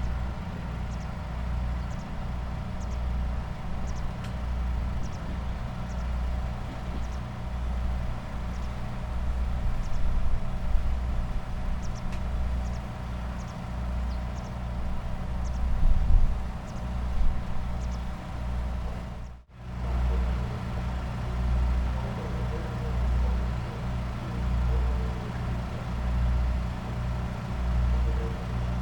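Diesel train engine idling at a station: a steady low hum that swells louder in the middle. After a brief dropout, the low hum carries on with an even, slow throb.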